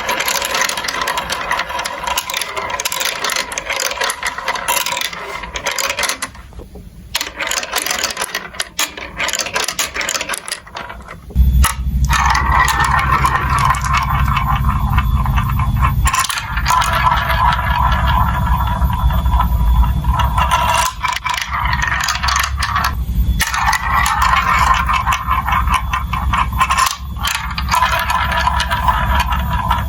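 Marbles rolling and clattering through a plastic building-block marble run, a dense stream of small clicks and rattles. About eleven seconds in, a steady low rumble joins and continues under the clatter.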